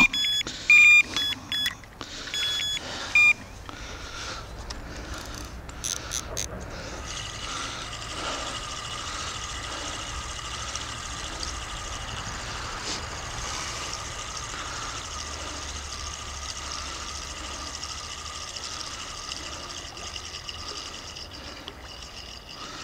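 Electronic bite alarm on the rod rest beeping in a quick series of short, high beeps during the first three seconds as the fishing line is handled. A steady rushing noise follows for the rest.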